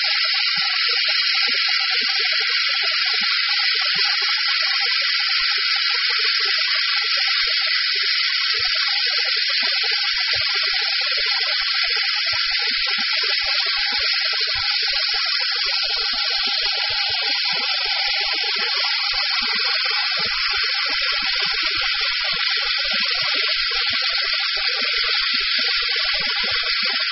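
OMAX abrasive waterjet cutting a metal plate with the high-pressure jet held vertical for a straight cut: a steady, loud hiss with no change in level.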